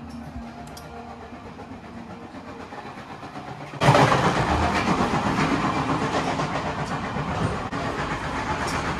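Passenger train running on the rails, heard from on board: a quiet cabin rumble that jumps suddenly much louder about four seconds in and stays loud.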